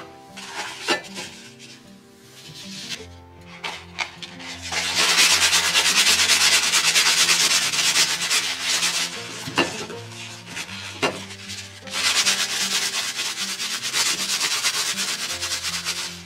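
Paper towel rustling and rubbing against a plastic food container as it is handled and laid in, in two long loud spells, with a few light clicks between, over soft background music.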